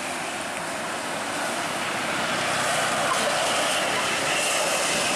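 A tour bus driving past close by: a steady rush of engine and tyre noise that grows slightly louder, with a faint high whine coming in partway through. No horn sounds.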